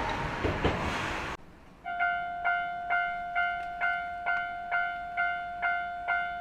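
A train rumbles and clatters through a crossing, then cuts off abruptly about a second in. After a brief quiet, a Japanese railroad crossing's warning bell starts its clanging ding, evenly repeated about twice a second.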